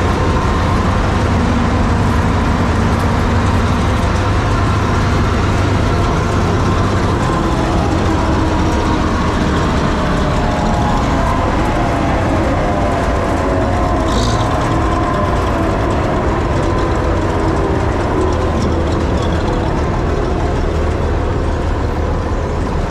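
Bizon combine harvester's SW 400 six-cylinder diesel engine running steadily, a dense mechanical din with a deep rumble. A single sharp click about fourteen seconds in.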